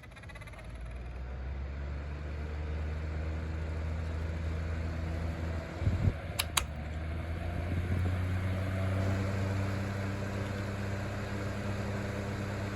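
Comfort Zone 9-inch box fan running on low while tipped face down: a low, steady motor hum that builds over the first couple of seconds, with the rubbing from inside the fan that shows up only in this position. A couple of sharp clicks come about halfway.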